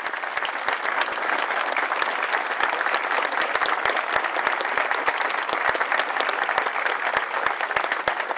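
Crowd applauding, a steady dense clapping of many hands.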